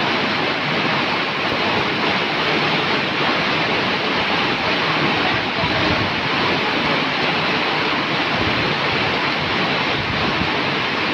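Heavy rain pouring down in a steady, loud, unbroken downpour.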